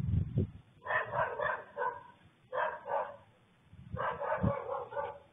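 Dog barking in three quick volleys of several barks each.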